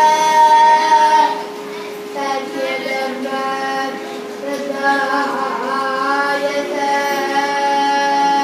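A boy singing a Carnatic song over a steady drone. He holds a long note that stops about a second in, then after a short pause sings ornamented, wavering phrases and settles into another long held note near the end.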